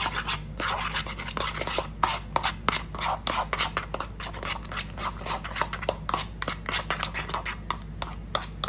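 Metal spoon stirring whipped cream in a plastic bowl: quick, irregular scrapes and clicks as the spoon runs against the bowl's sides and bottom.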